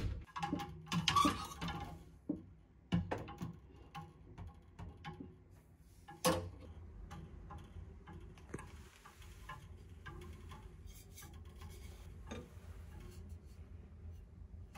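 A sharp knock, then scattered light clicks and knocks from handling a hotel closet's wooden fittings: the closet door and a wooden-handled clothes brush taken off its hook.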